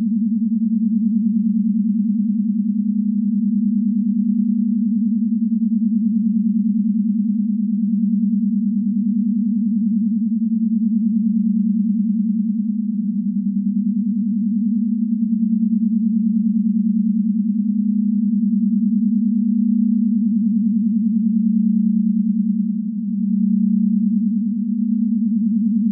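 A steady low synthesized drone on one pitch, with faint higher tones flickering above it now and then and a brief dip in loudness near the end.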